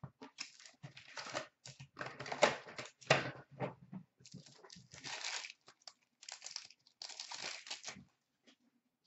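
Packaging of a hockey card hobby box being torn and crinkled open, with the foil card packs rustling as they are lifted out and handled. The crinkling and tearing comes in irregular bursts and dies away about eight seconds in.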